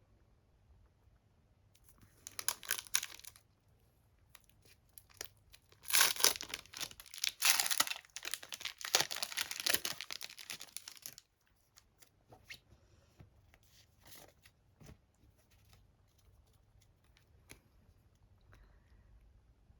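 Pokémon card pack wrapping being torn open and crinkled. There is a short tear about two seconds in, then a longer, louder stretch of tearing and crinkling from about six to eleven seconds, followed by faint scattered clicks and rustles of handling.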